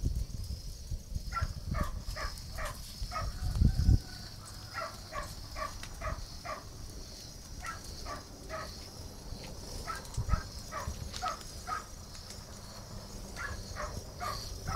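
A dog barking over and over in runs of short, quick barks, about three a second, with a steady high chirring of insects behind it.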